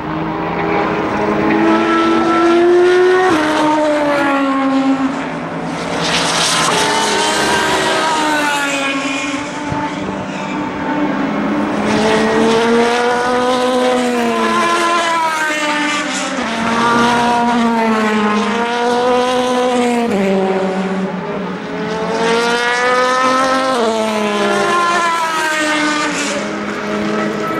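Endurance race cars passing one after another at speed, several engines overlapping, each one's pitch climbing and then dropping as it goes by.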